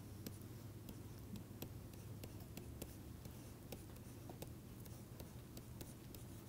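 Faint taps and scratches of a stylus writing on a pen tablet, in scattered light clicks, over a steady low hum.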